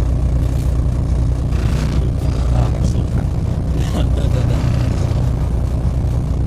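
Inside a MAZ 203 city bus under way: the diesel engine's steady low drone with road noise and a few light rattles.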